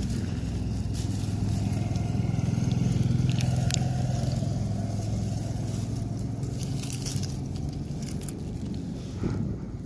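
A motor vehicle engine hum that grows louder about three seconds in and then slowly fades, with scattered crackles and scrapes over it.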